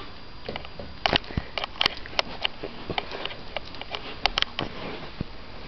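A dozen or so irregular sharp clicks and taps over a low hiss, the loudest about a second in and about four seconds in, thinning out near the end.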